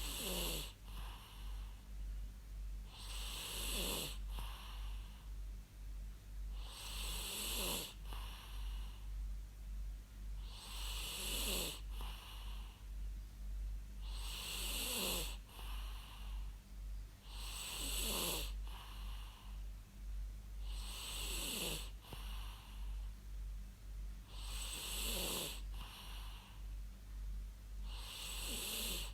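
A person snoring in a slow, even rhythm, about one snore every three and a half seconds. Each snore carries a wheezy tone that falls in pitch, over a steady low hum.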